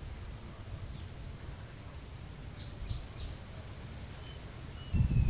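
Quiet outdoor ambience: a steady high insect drone over a low rumble, with a few faint short chirps about three seconds in. The low rumble comes in louder bursts near the end.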